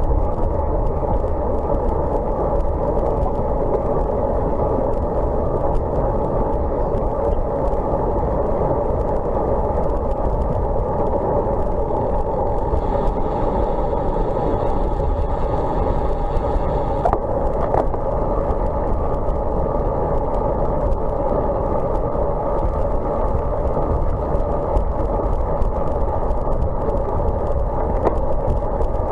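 Steady rush of wind over a bike-mounted camera's microphone, mixed with road-bike tyres rolling on wet tarmac, at an even level throughout.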